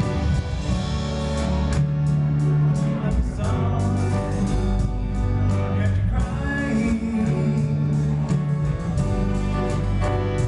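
A live band playing amplified music, with guitar, bass and drum beats and singing.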